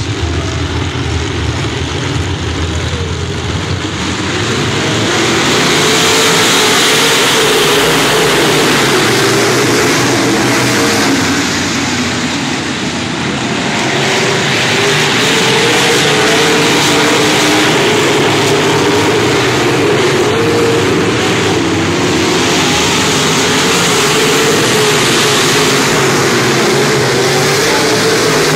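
A pack of dirt-track modified race cars running at full throttle: many engines at once, their pitches wavering and overlapping. The sound swells about five seconds in, dips briefly midway as the pack moves away, then comes back up as the cars come round again.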